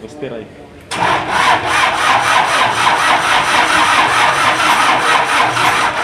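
Isuzu 4DR5 diesel generator engine being cranked by its starter motor for about five seconds, with an even rhythm, starting about a second in and stopping abruptly without the engine catching. This is a hard start on an engine whose glow plugs have failed.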